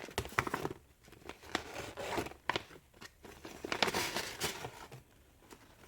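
Paper packaging rustling and crinkling with scattered small clicks and taps as it is handled and unwrapped by hand.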